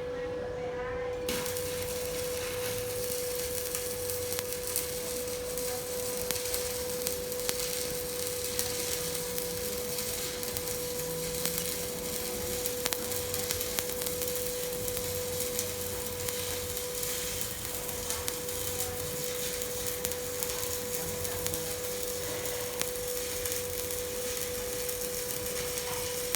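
Electric arc welding: a steady crackling hiss of the burning arc, starting about a second in, over a constant high hum.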